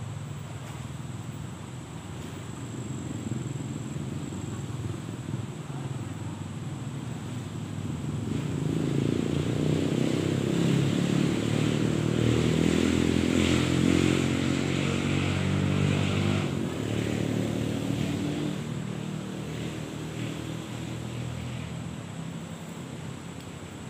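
A motor vehicle passing by: its engine drone grows louder over several seconds, is loudest near the middle, then fades away.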